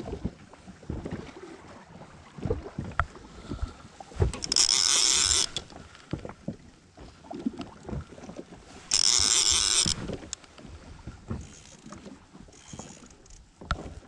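Conventional fishing reel buzzing twice in bursts about a second long while a hooked fish is fought and brought in. Between the bursts there are wind rumble and knocks from handling the rod.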